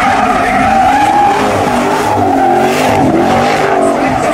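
A car spinning donuts, its tires squealing over the running engine, the squeal wavering up and down in pitch.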